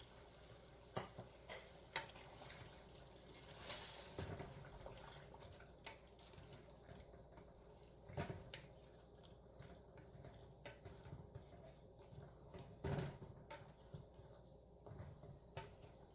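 Quiet cooking in a pot: a faint hiss of the spiced tomato and chicken mixture cooking, broken by scattered sharp clicks and knocks of a spoon against the pot.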